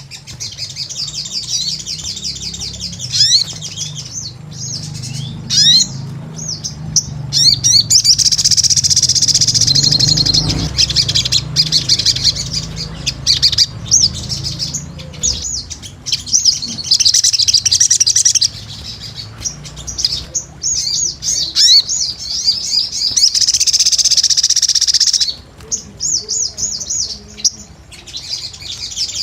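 Sogon (ruby-cheeked sunbird) singing energetically: rapid, high twittering and chattering trills in long runs with brief breaks.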